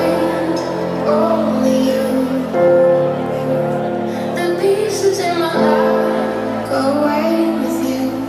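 Electronic dance music played loud over a concert PA and heard from the crowd: held synth chords that change about every three seconds under a sung vocal melody.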